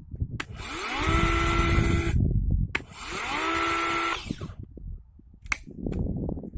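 Parkside 20 V cordless electric chainsaw run in two short bursts. Each time the motor and chain spin up with a rising whine, hold a steady high whine for a second or two, then stop; the second run winds down audibly. The chain is running before any bar oil has been added. Light handling clatter and a click follow near the end.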